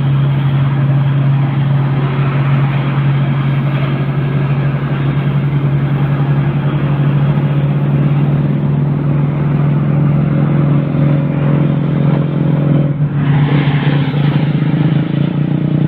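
Motor vehicle engine running at a steady speed on the road, a constant drone with road and wind noise, briefly rougher and noisier about thirteen seconds in.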